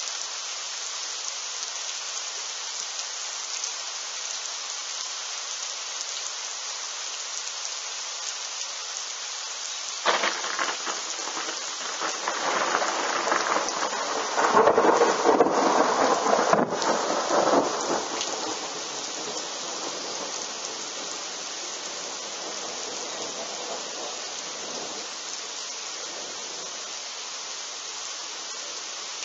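Steady rain falling. About ten seconds in, thunder from a lightning strike about 680 m away starts with a sudden crack and builds to a loud rumble a few seconds later. The rumble dies away over several seconds, leaving the rain.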